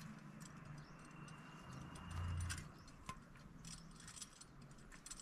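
Light clicks and small metallic rattles from a small black object being handled and turned over in the hands. A brief low hum comes about two seconds in, and a sharper click just after three seconds.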